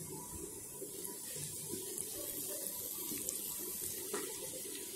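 Sliced onions, fried reddish brown with whole spices, sizzling steadily in hot oil in a kadai while a wooden spatula stirs them. A light knock about four seconds in.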